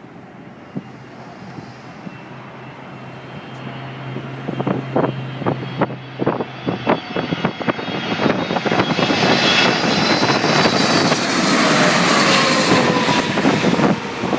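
Boeing 777-300ER's twin GE90 turbofan engines growing steadily louder as the jet approaches, peaking as it passes, with whining engine tones falling in pitch near the end. Wind buffets the microphone in short gusts.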